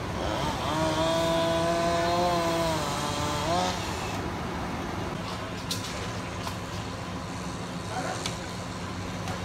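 A small engine running at steady high revs for about three seconds, its pitch rising briefly just before it stops, over a steady low engine hum. A few sharp knocks follow later.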